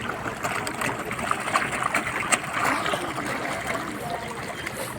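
River water flowing and splashing, with a sharp click a little over two seconds in.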